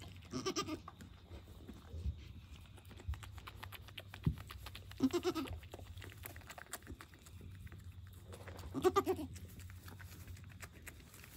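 Newborn Nigerian Dwarf goat kid bleating: three short, wavering calls about four seconds apart, with soft rustling and clicking between them.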